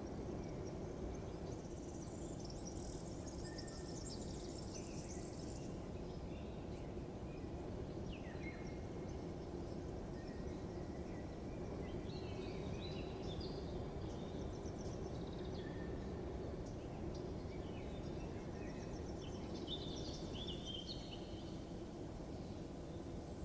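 Outdoor morning ambience: small birds chirping in short scattered bursts over a steady low background rumble.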